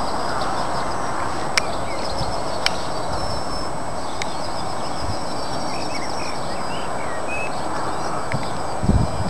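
Small birds twittering and trilling over a steady outdoor hiss, with a few sharp clicks; just before the end, low thumps set in.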